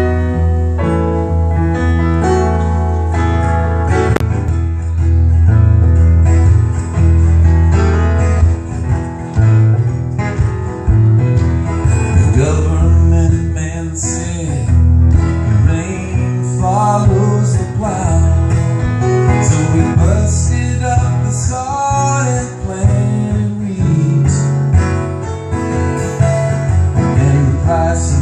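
Acoustic guitar and grand piano playing a song together live.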